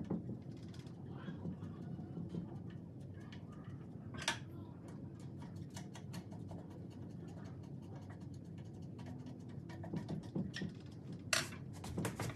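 Small clicks and scratches of M6 machine screws being turned in by hand and with a screwdriver, fixing a wooden cross piece to the metal center axle pole of a warping mill. A sharper knock comes about four seconds in, and a run of knocks near the end.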